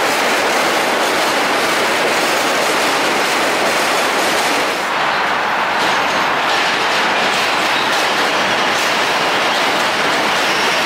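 New York City subway trains on the Williamsburg Bridge's steel track, heard at close range: a steady, loud noise of wheels on rail as one train runs alongside, then a second train arrives and passes. The noise dips briefly about five seconds in, between the two trains.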